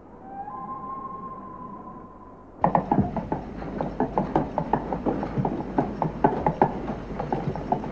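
A child's low plastic tricycle rolling fast along a hallway, its hard plastic wheels rattling with a dense, uneven run of clicks that starts suddenly about two and a half seconds in. Before that, two faint steady tones are held.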